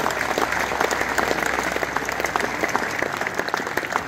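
Crowd applauding: many hands clapping at once in a steady patter.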